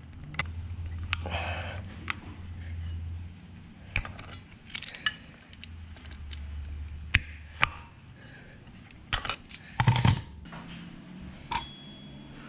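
Scattered sharp metallic clicks and clinks of mole grips working a steel shoe return spring onto the drum handbrake shoes of a Toyota Land Cruiser 40 series. The loudest cluster comes about ten seconds in.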